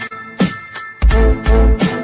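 Upbeat background music with a steady beat and deep bass notes; the bass drops out briefly and returns about halfway through.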